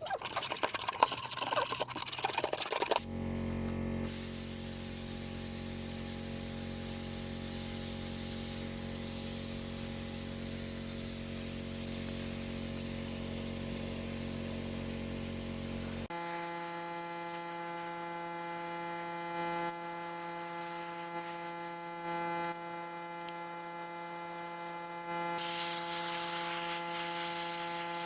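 A small machine running steadily with a strong hiss, after about three seconds of irregular clatter; about 16 seconds in the hiss drops away and a different steady hum carries on.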